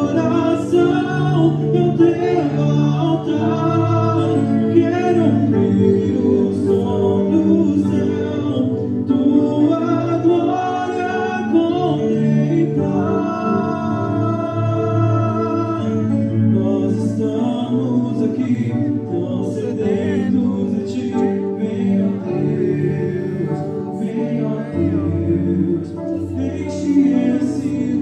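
Christian worship song sung in Portuguese, a sung melody over sustained low chords.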